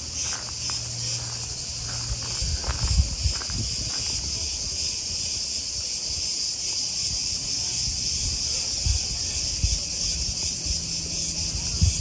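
Cicadas buzzing in a steady, continuous, high-pitched chorus, with a few low thumps.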